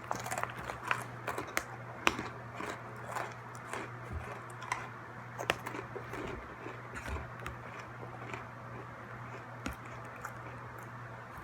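Scattered light clicks and taps over a steady low hum; the clicks come more often in the first half.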